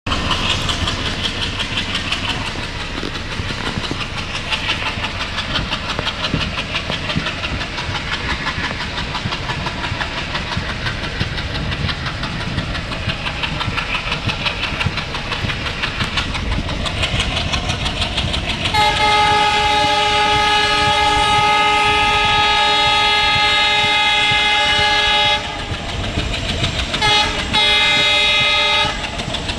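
WDM-3A diesel locomotive with its ALCO 16-cylinder engine chugging, mixed with rail clatter as the train runs. About two-thirds in its horn sounds one long blast, then two quick toots and a second, shorter blast near the end.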